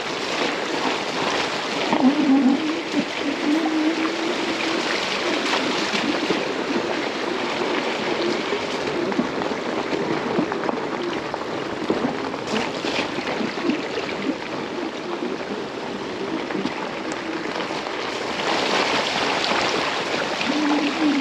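Fat-tire electric bike riding a wet gravel trail: tyres crunching and hissing through puddles and water running down the track. The electric motor's low, wavering whine runs underneath, fading out for a stretch and coming back near the end.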